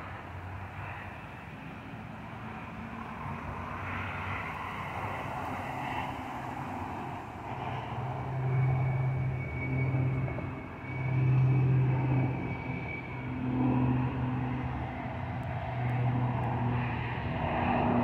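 Saab 2000 turboprop climbing out after takeoff: the low drone of its propellers and turbine engines grows louder, swelling and dipping unevenly as it passes overhead. A thin high whine sits over it for several seconds in the middle.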